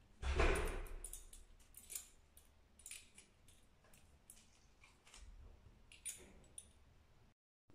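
Plastic bag crinkling and rustling in short irregular crackles as it is swung about on a strap, with a louder, fuller rustle and bump about half a second in.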